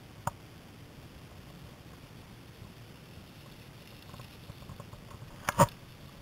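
A mountain bike rolling past on a loose gravel track: a low, steady crunch and rush. There is a sharp knock about a quarter second in and a louder double knock near the end.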